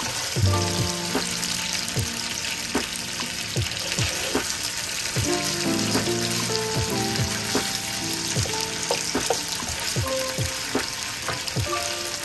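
Cubed meat sizzling steadily as it fries in a nonstick pan and is turned with a spatula. Soft background music with a regular beat plays underneath.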